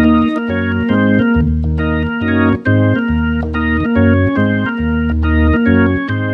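Yamaha MODX synthesizer playing its 'All 9 Bars' drawbar organ preset, a Hammond-style organ sound: a rhythmic riff of chords over a bass line, with short breaks between the chords.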